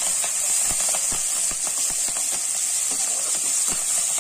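Green chillies and curry leaves sizzling in hot oil with mustard and fennel seeds in a kadai, being stirred: a steady hiss with frequent small crackling pops.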